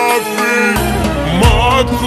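Iraqi pop song playing: a held melody line over a beat and bass. The bass drops out for the first three-quarters of a second, then comes back in.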